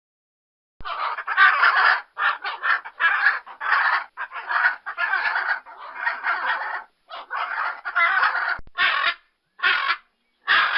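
Blue-and-yellow macaw giving a long run of harsh squawks, starting about a second in, closely packed at first and coming as shorter, separate calls near the end.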